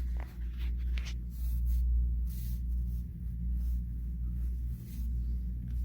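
Fabric rustling and scraping against a phone microphone carried in a pocket: short scratchy rustles, several times, over a steady low rumble.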